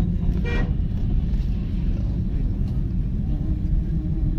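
Steady low rumble of a car driving, heard from inside its cabin: engine and road noise. A brief higher-pitched sound comes about half a second in.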